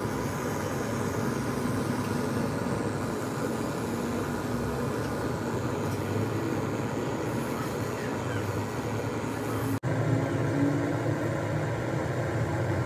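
Steady low background rumble with no distinct events, broken by a momentary dropout about ten seconds in.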